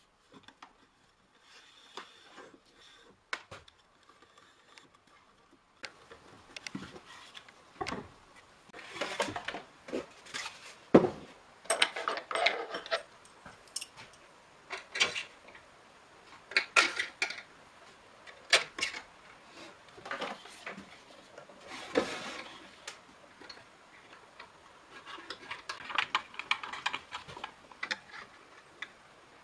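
Irregular clicks, clinks and knocks of small metal fittings and wooden lamp parts being handled and fitted together on a workbench, the sharpest knock about a third of the way in.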